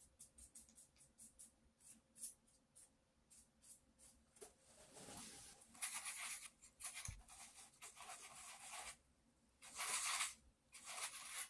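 Faint, short scratches of a paintbrush stroking paint onto a sheet of paper, about two or three a second, then longer, louder scraping and rustling in the second half.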